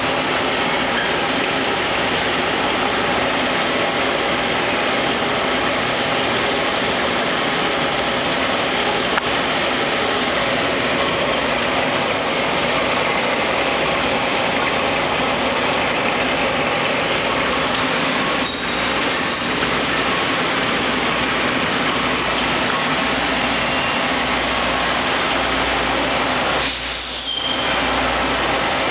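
Sinker EDM machine running a burn on a part submerged in dielectric fluid: a steady, even hiss that dips briefly near the end.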